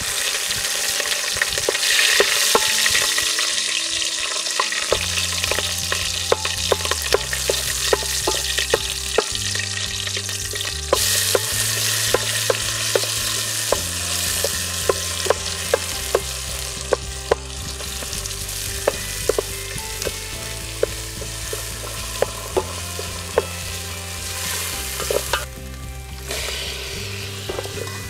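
Curry leaves, green chillies, onions and tomatoes sizzling in hot oil in an aluminium pot, the sizzle jumping up sharply right at the start. A wooden spoon stirs them throughout, with many sharp knocks and scrapes against the pot.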